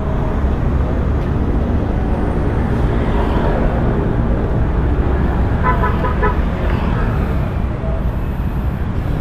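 Steady noise of passing street traffic with a deep rumble of engines and tyres. A vehicle horn sounds in a few quick beeps about six seconds in.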